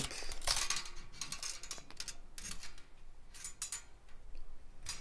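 Steel tape measure blade scraping and clicking against an aluminium extrusion as it is held and slid into place for a reading. It makes an irregular run of short rasps and metallic clicks, thickest in the first two seconds.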